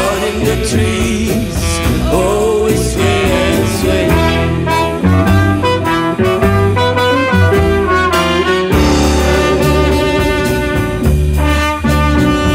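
Roots-rock band playing an instrumental passage, with saxophone and brass lines over a steady drum beat and bass. The bass and drums drop out for a moment about two-thirds through, then come back in.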